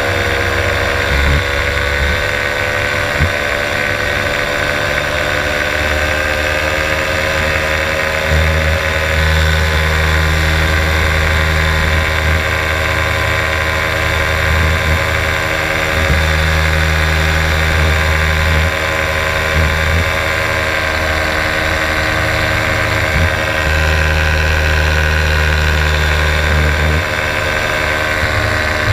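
Paramotor engine running at a steady cruise in flight, an even drone with a high whine above it, with wind buffeting the microphone in low gusts that come and go.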